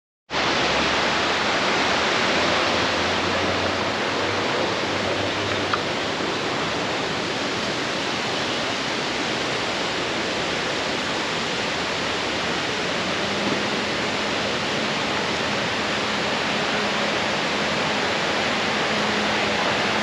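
Steady rush of a waterfall's falling water.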